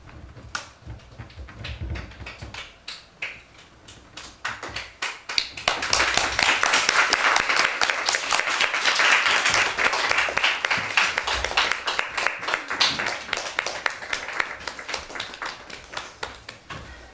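Large sheets of paper being torn and crumpled: scattered crackles at first, then from about five seconds in a loud, dense ripping and crackling that thins out toward the end.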